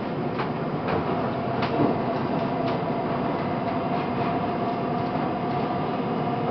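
Linimo HSST maglev train running along its elevated guideway, heard inside the car: a steady running noise with a thin steady tone, and a few light clicks in the first few seconds.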